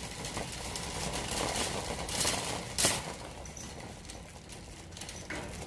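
Wire shopping cart rattling as it is pushed across a hard store floor, with a sharper clatter about three seconds in.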